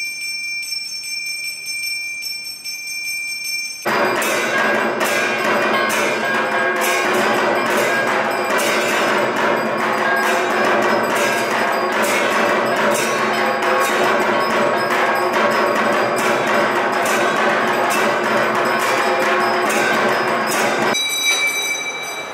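Temple bell ringing steadily during aarti. About four seconds in it gives way to a loud, dense clangour of bells and struck metal percussion beating at a regular pace, and the lone ringing bell returns near the end.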